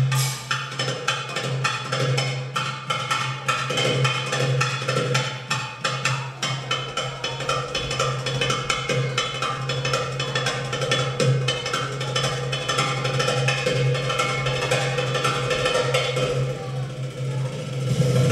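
Recorded belly-dance drum solo music: a fast, dense run of hand-drum strokes over a steady low tone, thinning out briefly near the end before picking up again.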